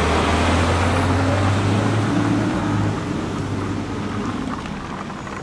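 Truck engine running with a steady low hum, easing off toward the end.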